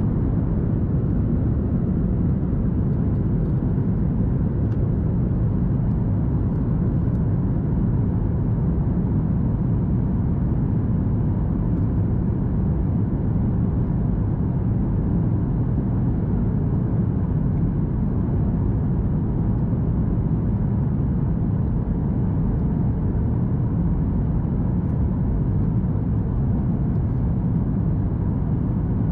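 Steady cabin noise inside a Boeing 737 MAX 8: the even rumble of its CFM LEAP-1B engines and airflow past the fuselage, deepest in the low end and unchanging throughout.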